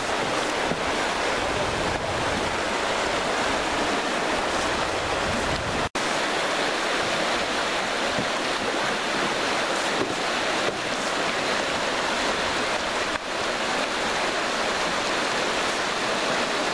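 Rushing whitewater of a river rapid: a steady, even roar of churning water, briefly cut off once about six seconds in.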